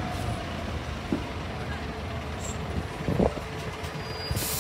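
Three-axle double-decker city bus passing slowly: a steady engine and road rumble with a faint steady whine, and two short knocks, the louder about three seconds in.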